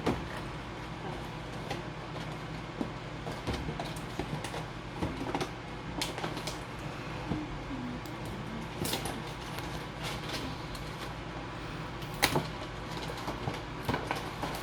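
Hands unpacking and handling the parts of a boxed plastic toy figure: scattered light clicks, taps and rustles, a few sharper knocks among them, over a steady low hum.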